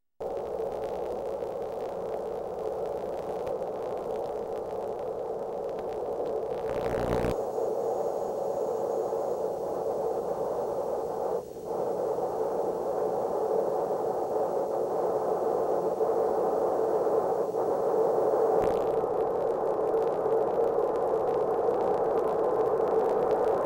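Steady static hiss from an old videotape, with a brief dip about eleven seconds in.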